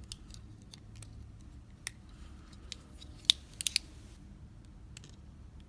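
Scattered small, sharp metallic clicks and taps of metal tools being handled, with a quick cluster of three or four louder clicks about three and a half seconds in.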